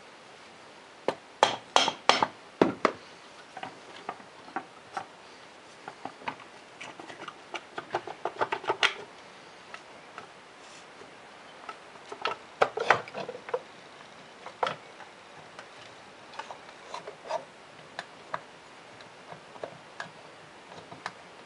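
Irregular metallic knocks and clunks of an engine cylinder being worked loose from its crankcase and lifted off the piston of a Polaris 400 engine, with a tight cluster of sharp knocks early on and scattered lighter taps and scrapes after.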